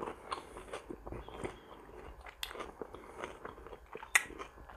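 Close-miked chewing of a mouthful of vegetable salad: soft, irregular wet mouth clicks and squelches, with a couple of sharper clicks partway through and near the end.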